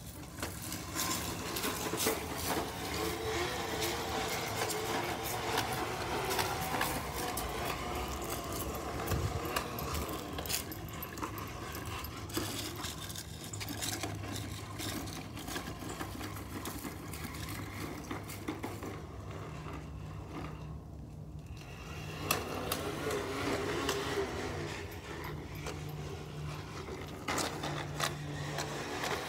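Child's push lawnmower rattling and clicking as it is rolled along, with scraping over the ground.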